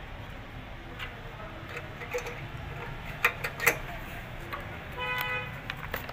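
Sharp metallic clicks and clinks of tools and small carburetor parts being handled as a carburetor is fitted to a 9 hp engine, the loudest pair a little past three seconds in, over a steady low background rumble. About five seconds in a brief steady pitched tone sounds for half a second.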